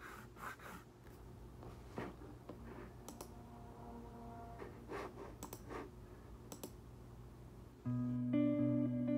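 Soft, scattered rustles and clicks of paper as pages of a binder-clipped stack are handled and turned. About eight seconds in, guitar music comes in loudly.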